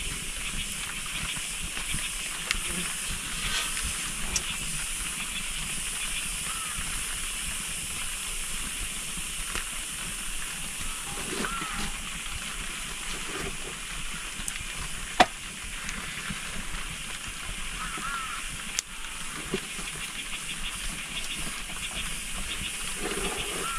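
Open log fire burning under an iron flatbread pan: a steady hiss with scattered crackles, and one sharp pop about fifteen seconds in.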